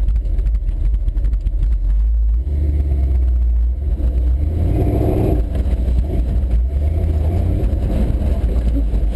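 Ford F100 pickup's engine running with a deep, steady drone heard from inside the cab as it drives a rough trail, growing stronger about two and a half seconds in, with the cab knocking and rattling over the bumps throughout.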